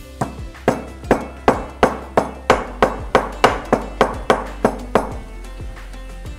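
Stone pestle pounding nutmeg in a white stone mortar: about fourteen sharp knocks, roughly three a second and quickening slightly, stopping about five seconds in. Background music plays underneath.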